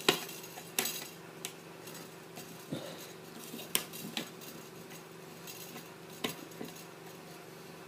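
Scattered clicks and clinks of a screwdriver and screws against an old printer's casing as its screws are taken out, the sharpest right at the start, over a faint steady hum.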